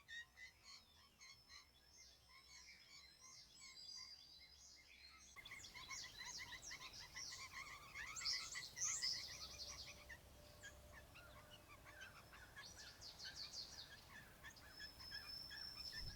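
Faint chirping and calling of birds, many short quick notes, growing denser and louder from about five seconds in.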